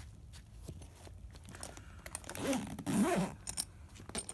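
Handling rustle of the Luggage Works rolling tote's fabric pockets, then, about two seconds in, a pocket zipper pulled for about a second, its rasp rising and falling in pitch as the pull speeds up and slows.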